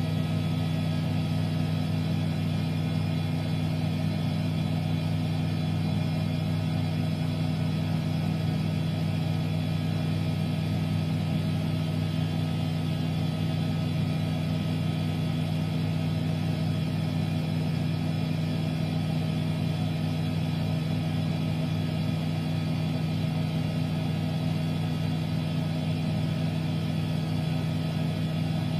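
Miele washing machine running at a constant speed: a steady low hum with several steady tones above it, unchanging throughout.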